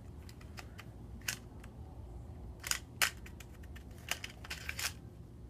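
Hard plastic toy parts clicking and knocking as a Hot Wheels track launcher is handled: a string of irregular sharp clicks, the loudest about three seconds in.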